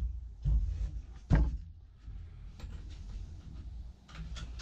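Pine board being handled on a wooden workbench: two solid knocks about a second apart near the start, then lighter clicks and taps as a pocket-hole jig is fitted to the board.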